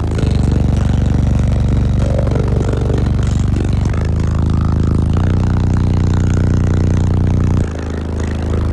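A wall of fifteen PSI 15-inch subwoofers in a clamshell box playing very loud, deep bass, heard inside the truck's cab. Long held bass notes step to a new pitch every one to three seconds, and the level dips near the end.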